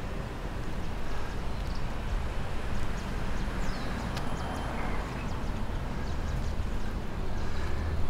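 Outdoor ambience: a steady low rumble with a few faint high chirps and light ticks scattered through it.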